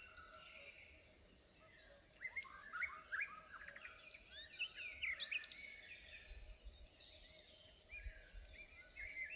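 Several small birds chirping and calling in quick, overlapping notes, some rising and some falling, over a soft low rumble of wind that picks up from about six seconds in.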